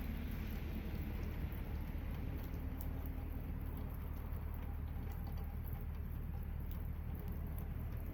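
Light rain and dripping water pattering steadily over a low, steady hum.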